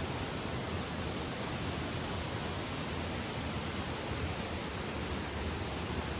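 Mountain creek water rushing and splashing over rocks and fallen logs in small cascades: a steady, even rush of water.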